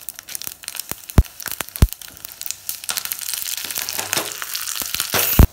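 Hot oil sizzling in a small iron tempering pan, with seeds crackling and popping and a couple of sharp knocks. About three seconds in it turns to a dense, steady sizzle as curry leaves and dried red chillies go into the oil, ending with a loud knock.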